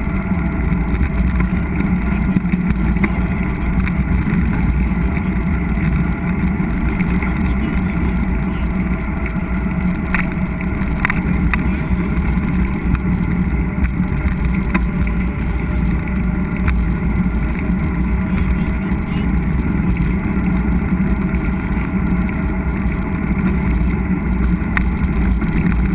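Steady low rumble of a mountain bike riding on a dirt trail, with wind on the action camera's microphone, and a couple of faint clicks about ten seconds in.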